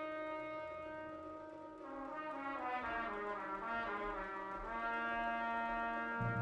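Fanfare band of brass and saxophones playing softly: a held chord, then a short stepwise descending line about two seconds in, which settles on a new sustained chord. A loud low note comes in at the very end.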